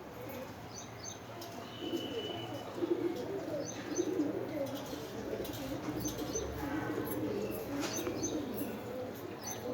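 Birds calling outdoors: doves or pigeons cooing continually, with short bursts of high chirps from small birds every few seconds and one thin held whistle about two seconds in.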